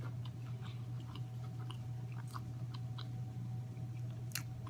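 A person chewing food close to the microphone: soft, scattered wet mouth clicks, with one sharper click near the end. A steady low hum runs underneath.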